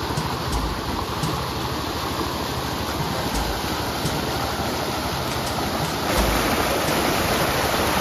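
Fast-flowing stream rushing over rocks, a steady loud hiss of white water that grows louder about six seconds in. A few dull low thumps.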